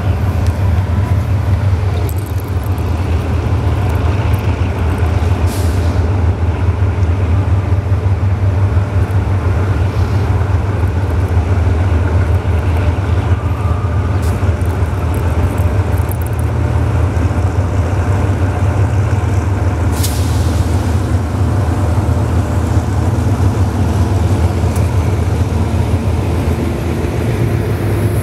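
A GE diesel-electric locomotive hauling a passenger train runs steadily with a deep, even rumble as it draws slowly toward and past the listener.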